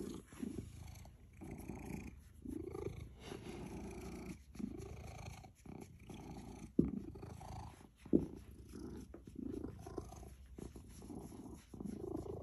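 Domestic orange tabby cat purring contentedly under head scratches, the purr swelling and fading with each breath. Two brief louder knocks come a little past the middle.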